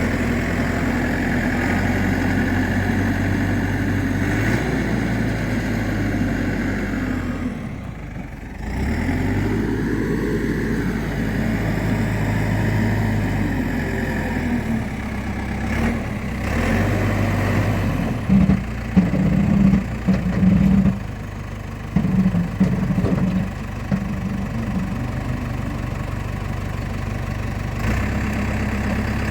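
Engine running steadily, dipping briefly about eight seconds in and then picking back up. In the second half comes a run of short, uneven knocks.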